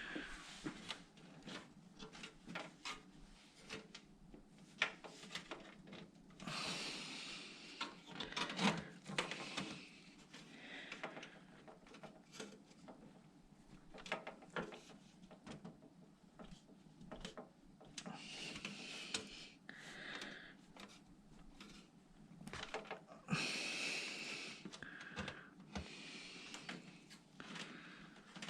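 Small clicks, taps and knocks of hands handling computer parts and a PC case, with a few longer stretches of rubbing or scraping.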